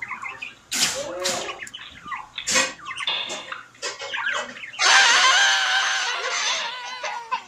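Short squawking, yelping cries, then about five seconds in a loud, drawn-out, wavering scream of a few seconds: a jumpscare screamer.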